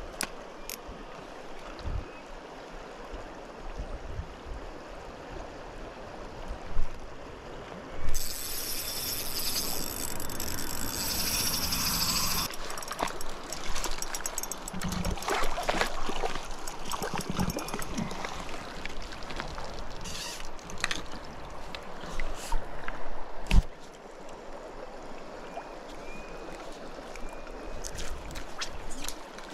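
Shallow river flowing steadily over stones, with a louder stretch of splashing near the middle and scattered knocks and rustles as a landing net and tackle are handled at the water's edge.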